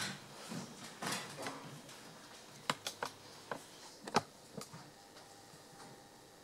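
A handful of sharp, separate knocks and clicks about midway, after some rustling at the start, against quiet room tone.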